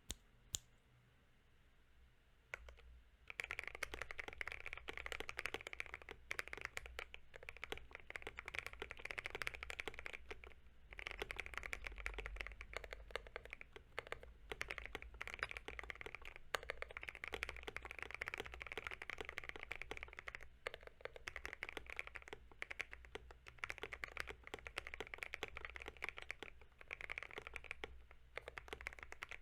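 Typing on a MonsGeek M1 mechanical keyboard with hand-lubed Akko POM Silver switches on a polycarbonate plate, foam- and tape-modded: a few single key clicks, then rapid continuous keystrokes from about three seconds in, with a couple of brief pauses.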